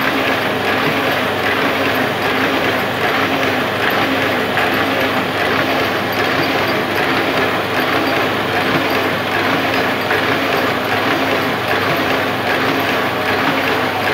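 Hamada 800 sheet-fed offset printing press running steadily while feeding and printing invitation sheets, a continuous mechanical sound of its rollers, grippers and sheet feed.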